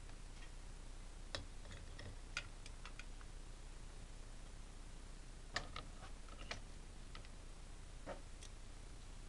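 Plastic tape reels clicking and knocking as they are fitted onto the spindles of a Saturn 202-2 reel-to-reel tape recorder. A cluster of small clicks comes a little over a second in, another about halfway through, and a single knock near the end.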